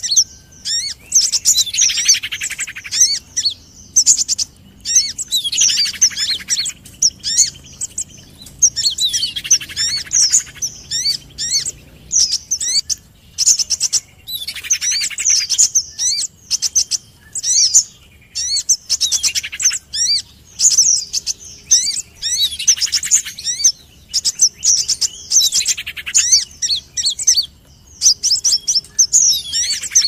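Bird-lure recording of olive-backed sunbirds giving agitated alarm chirps mixed with a female common iora calling. Fast, sharp, high chirps run throughout, with a lower buzzy trill that comes back about every four seconds.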